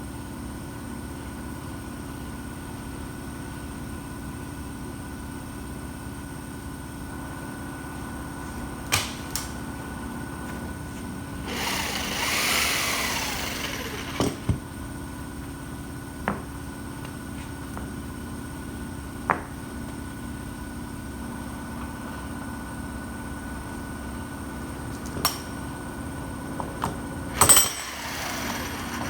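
Steady mechanical hum with a few sharp clicks and knocks, and a hissing rush with a falling whine about twelve seconds in and again near the end.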